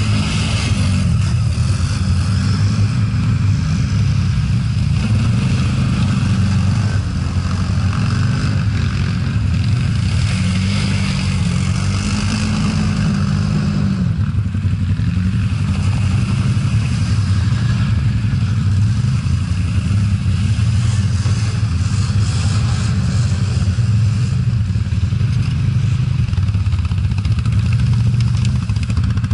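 ATV (quad bike) engine running close by under load, its revs rising and falling several times, with a steady hiss over it.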